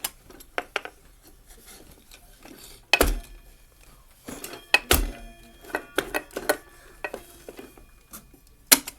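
Irregular knocks and small metallic clinks, with two louder strikes about three and five seconds in; the second leaves a brief metallic ringing that dies away.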